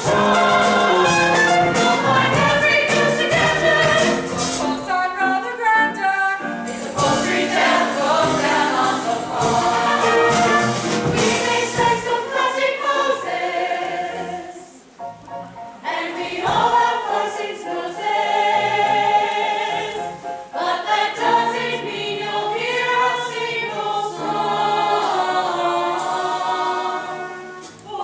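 A stage cast singing together as a chorus with instrumental accompaniment, in a musical-theatre number. The singing dips briefly about halfway through.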